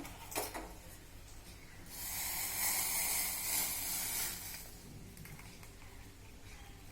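Hot kadha, a spiced herbal decoction, poured from the pan through a strainer into a cup: a hissing splash lasting about two and a half seconds, starting about two seconds in. A short click comes just before it.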